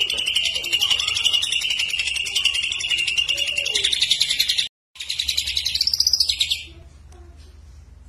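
Caged male green leafbird (cucak ijo) singing a loud, fast, continuous chattering trill. The song breaks off briefly a little past halfway, resumes with a rising-and-falling sweep, and stops about two-thirds of the way through.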